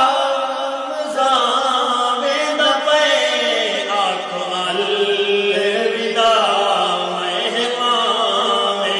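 Male voices singing a Saraiki devotional nazam (naat-style) without instruments, in long drawn-out melodic lines. From about four seconds in, a steady low held tone sits under the melody.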